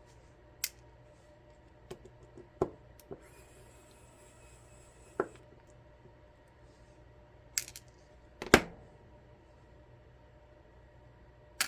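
Scattered sharp clicks and knocks of small metal lock parts and a screwdriver being handled as a high-security lock cylinder is taken apart, about eight in all, the loudest about eight and a half seconds in. A brief soft hiss comes about four seconds in.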